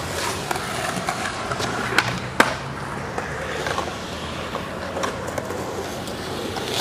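Skateboard wheels rolling steadily over concrete, with two sharp clacks about two seconds in.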